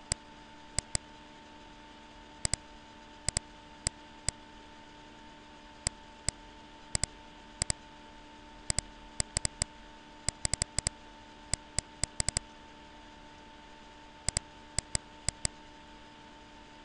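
Computer mouse clicking: many short, sharp clicks scattered irregularly, some in quick pairs and runs, over a steady faint hum and hiss.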